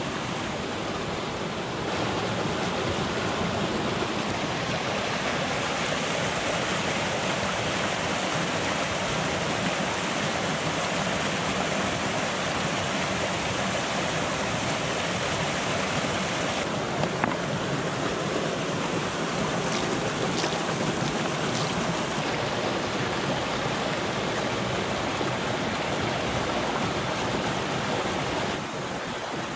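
Shallow mountain stream running steadily over gravel and stones, with a few light clicks past the middle.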